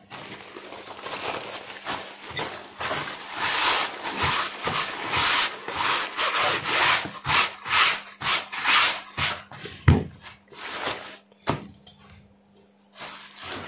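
Paper tissue rubbed back and forth over a surface in repeated wiping strokes, about one and a half a second, followed by two sharp knocks near the end.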